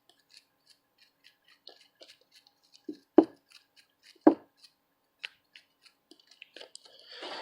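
Light clicks and taps of small hard objects being handled on a workbench, with two louder knocks about three and four seconds in and a faint hiss starting near the end.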